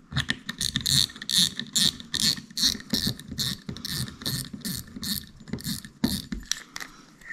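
Front drag knob of a Shimano Nasci spinning reel being turned onto the spool, clicking steadily about four to five times a second and stopping about six seconds in.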